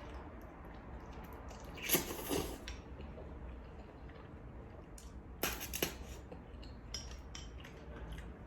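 Eating utensils clinking and scraping against a bowl and plate during a meal of noodles and fried chicken: a few short clinks, the loudest about two seconds in and two more close together about five and a half seconds in.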